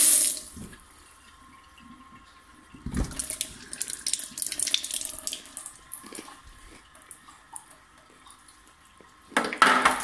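Water at a kitchen sink: a running tap that stops just after the start, then a knock about three seconds in and a few seconds of irregular splashing and clatter, with a louder burst near the end.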